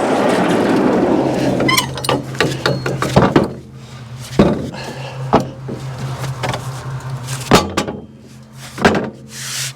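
Running engine noise for about the first second and a half cuts off, the sawmill having run out of gas. A string of sharp knocks and clunks follows, with a low steady hum underneath.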